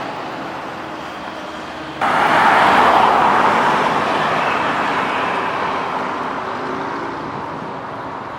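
Road traffic: a vehicle passing close, its noise rising suddenly about two seconds in and fading slowly over the following seconds, with a faint engine hum near the end.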